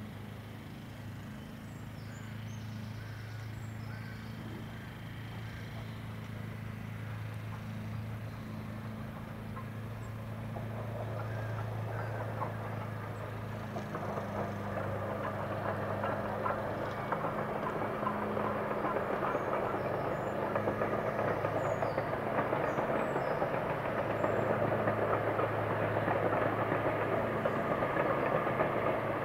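Steam locomotive hauling a train of coaches, its running sound growing louder from about a third of the way in as the train draws nearer. A steady low hum runs underneath.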